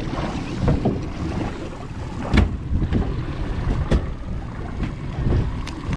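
Wind buffeting the microphone aboard a fishing boat at sea, over a steady low rumble, with a few sharp knocks, two of them standing out in the middle.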